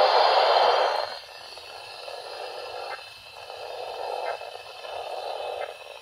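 Weather-band radio loudspeaker playing a NOAA Weather Radio broadcast as noise instead of voice: a loud burst of static for about the first second, then quieter hiss with a few faint clicks.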